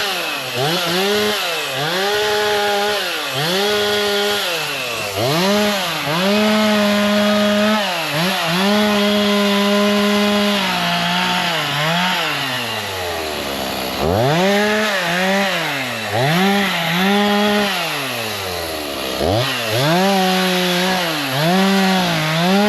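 Two-stroke chainsaw revving up and down over and over, with the throttle held at full speed for a couple of seconds at a time. It drops back to idle about halfway through and again a few seconds before the end.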